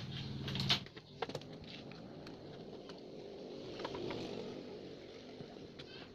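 Clicks and rustling of a TV circuit board and its wires being handled and set back into the chassis, with a low hum underneath that stops about a second in.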